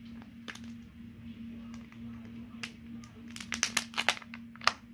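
Plastic shell of a Kinder Joy egg being twisted and pried apart by hand: scattered small clicks and crackles, then a quick cluster of sharp plastic clicks about three and a half seconds in and one loud click near the end, over a faint steady hum.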